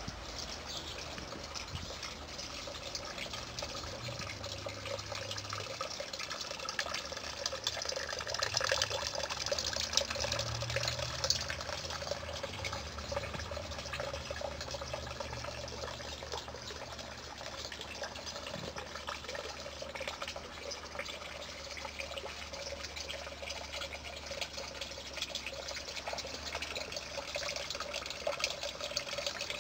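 Water trickling steadily and splashing lightly.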